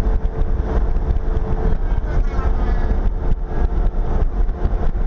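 Semi-truck driving at highway speed: a loud, steady low rumble of road and wind noise with an engine hum, broken by a few short knocks.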